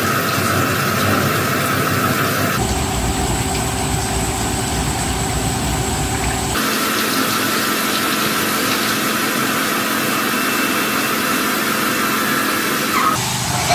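Machinery running steadily with a hum and a few steady tones. The sound changes abruptly about a third of the way in, again about halfway, and once more near the end.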